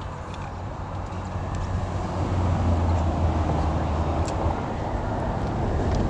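A steady low engine drone that swells louder about two seconds in, with a few faint ticks over it.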